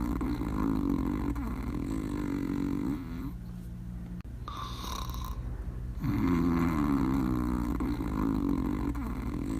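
Sleeping dog snoring: long, drawn-out snores, with a lull a few seconds in before the next snore starts about six seconds in.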